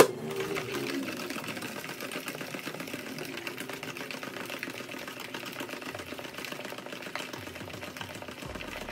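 A long plastic spoon stirred fast in a plastic pitcher of melon water, knocking and scraping against the pitcher's sides in a rapid, steady clatter.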